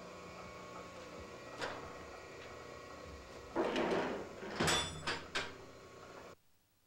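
A lump of soot and animal-glue (nikawa) mixture for sumi ink being worked by hand on a plastic sheet: a knock, then a rustle and a few sharp crackles of the plastic, over a steady hum. The sound cuts off suddenly about six seconds in.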